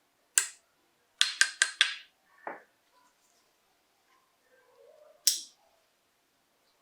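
Sharp metallic clicks from the parts of a Colt 1911 pistol being worked: a single click, then four quick clicks in a row, another, and after a pause of a few seconds one more.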